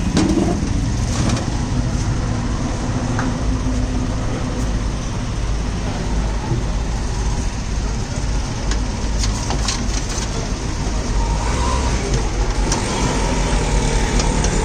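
An engine running steadily with a low, even rumble, with a few light clicks and taps on top.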